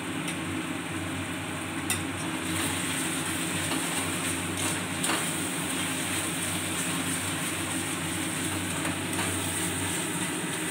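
Onion-and-capsicum sauce sizzling in a steel wok on a gas flame while a perforated metal spatula stirs it, scraping the pan with a few light clicks.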